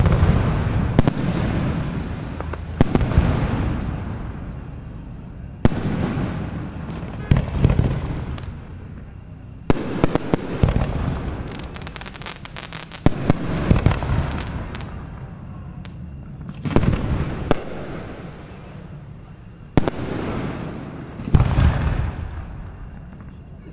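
Aerial firework shells bursting overhead: more than a dozen sharp reports a second or a few seconds apart, each followed by a long rolling echo. Near the middle comes a spell of rapid crackling.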